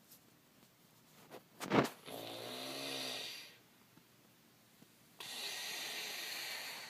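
A man snoring in his sleep. About a second and a half in comes a sharp snort, then a pitched snore lasting about a second and a half. After a pause, a second, breathier snore starts about five seconds in.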